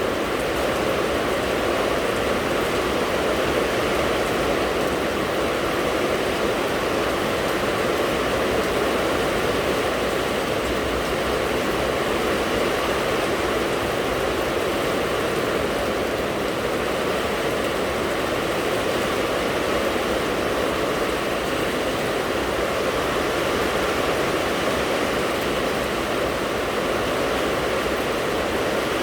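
Steady rain: an even rushing with no single drops, gusts or thunder standing out.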